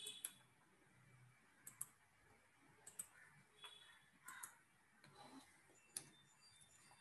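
Near silence: faint room tone with a handful of short, sharp clicks spread across it, some in quick pairs.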